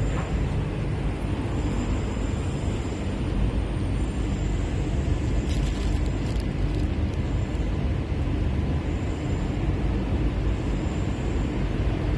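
Steady low rumble of outdoor background noise, with a faint high tone that comes and goes and a short cluster of clicks about six seconds in.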